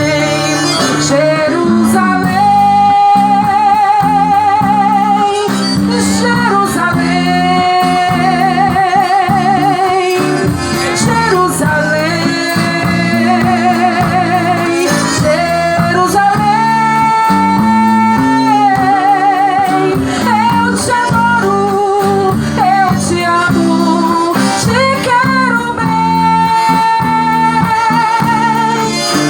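Gospel band music without lyrics: a melody of long held notes with vibrato over guitar and a pulsing accompaniment.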